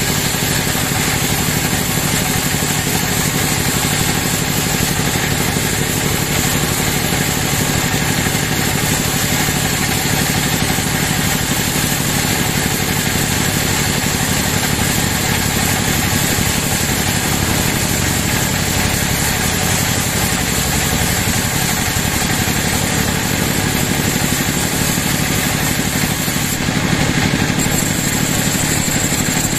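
Band sawmill running steadily, its blade cutting lengthwise through a large teak log, with a constant mechanical drone and a steady high whine. The whine drops out briefly near the end.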